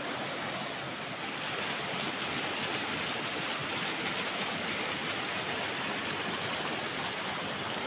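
Shallow rocky river rushing over boulders in white-water rapids: a steady, even rush of water.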